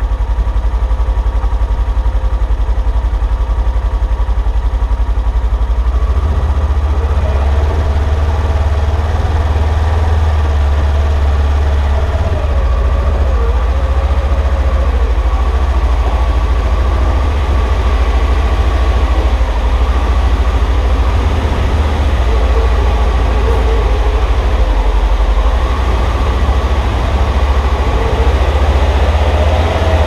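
Polaris Ranger UTV engine running steadily as the vehicle creeps slowly forward, a low drone that strengthens a little about six seconds in.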